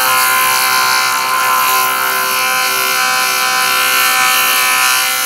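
JOOLTOOL bench sanding machine running at high speed, its 3M Flex Diamond very coarse disc grinding a wet enamel cloisonné piece (glass enamel and silver wire) flat. A steady motor whine with a loud, even hiss of abrasion.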